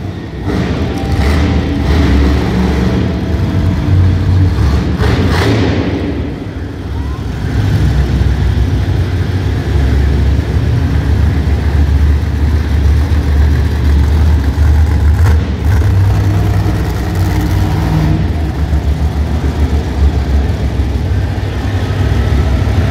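Monster truck engines revving loudly, a deep rumble that dips briefly about six seconds in and then builds again.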